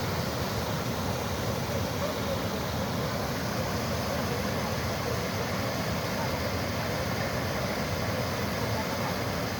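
Reservoir overflow water rushing steadily over the spillway, swollen by heavy rain.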